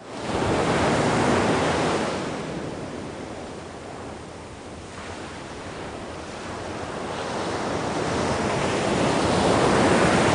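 Sea surf washing, with wind. It fades in at the start, eases off around the middle and builds to its loudest near the end.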